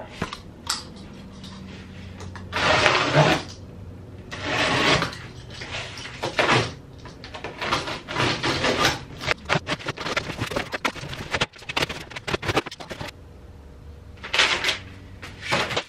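Unboxing of a steel tool cart: rustling of cardboard and plastic packing in several short noisy bursts, with scattered clicks and knocks of the cart's sheet-metal parts being handled.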